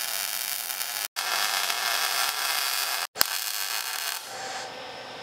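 MIG welder tack-welding suspension brackets to a steel truck frame: a steady frying crackle of the arc in three runs with short breaks between them and a sharp click at the start of the last run. About four seconds in, the crackle falls away to a weaker hiss as the welder runs out of wire, which the welder hears as "not a good sound".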